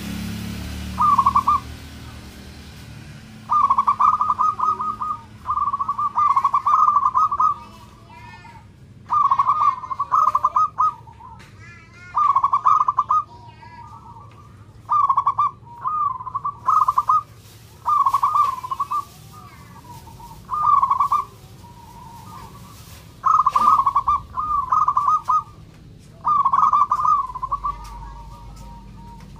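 Zebra dove (perkutut) singing its trilled cooing song, short rolling phrases repeated again and again with brief pauses between them. Faint chirps of other small birds come through in the gaps.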